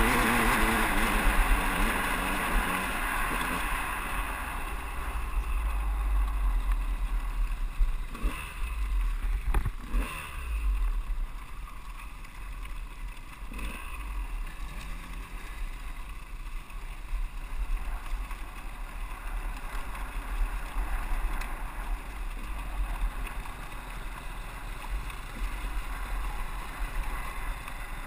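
KTM 200 EXC two-stroke dirt bike engine, pulling under throttle at first and then easing off about two seconds in as the bike rolls along slowly, with wind rumbling on the helmet camera's microphone throughout. A few short knocks come through about a third and halfway in.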